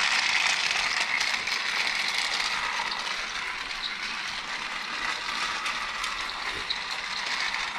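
Battery-powered Trackmaster Thomas toy engine running along plastic track, its small motor and gears whirring steadily, a little fainter after the first few seconds.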